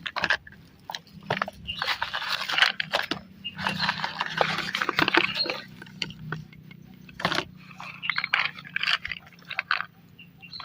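Packaging rustling, crinkling and scraping in irregular bursts with small clicks and knocks as items are pulled out of a parcel.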